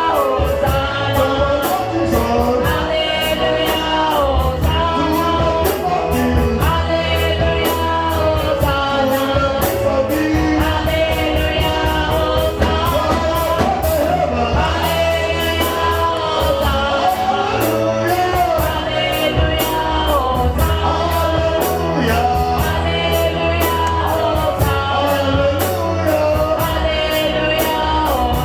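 Worship music: voices singing over bass and drums with a steady beat.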